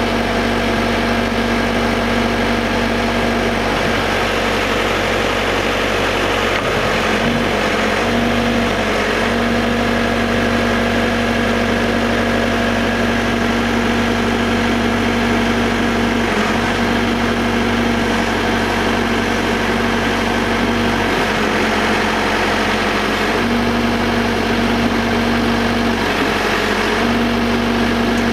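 Caterpillar 420D backhoe loader's diesel engine idling steadily.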